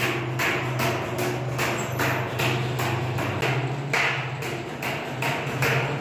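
Steady hammering on metal, about three blows a second, over a steady low hum.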